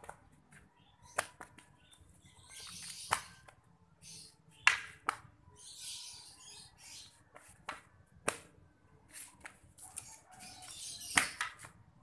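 Rattan eskrima sticks clacking together in a partner striking drill: a dozen or so sharp strikes at irregular intervals, the loudest about four and a half and eleven seconds in, with softer rustling between them.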